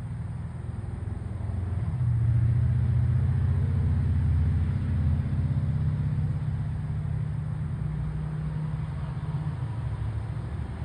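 Steady low mechanical rumble, louder from about two seconds in.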